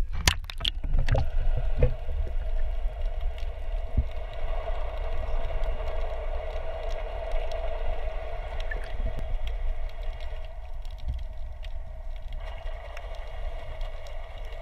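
Muffled underwater sound through a submerged camera: a steady low rumble with a constant mid-pitched hum, after several sharp knocks in the first two seconds as the camera is handled.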